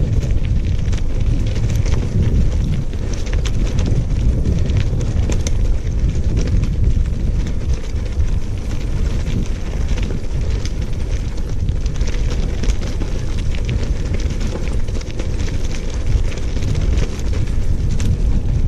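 Steady wind rumble on the microphone over a continuous fine crackle of gravel, moving along a gravel trail.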